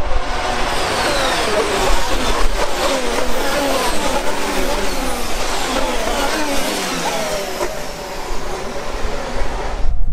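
Racing cars passing at speed one after another, their engine pitch sweeping down as each goes by.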